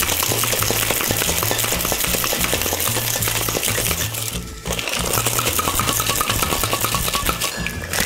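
Ice cubes rattling fast and hard inside a metal cocktail shaker as a drink is shaken, with a brief break about halfway through. Background music with a low bassline plays underneath.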